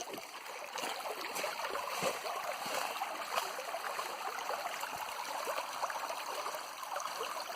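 Forest stream flowing and trickling over rocks, a steady splashing rush of water.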